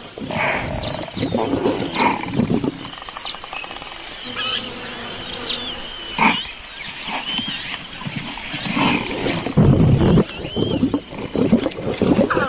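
Lion growling and snarling in irregular bursts, the loudest and deepest a little before the end.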